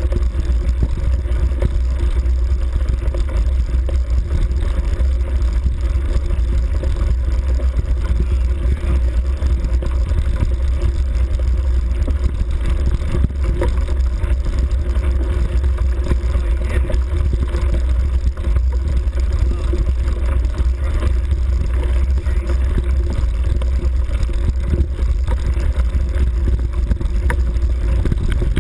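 Off-road motorbike engine running at a steady speed along a rough track, with heavy wind rumble on the microphone.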